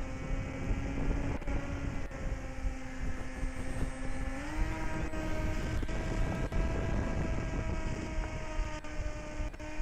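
A small RC airplane's electric motor and propeller whining steadily in flight, stepping up slightly in pitch about halfway through as the throttle is raised. Wind rumbles on the microphone underneath.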